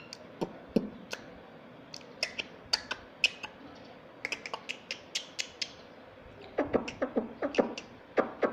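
Pet parrot making a string of short sharp clicks and brief high chirps, coming in quick bursts with short pauses between them.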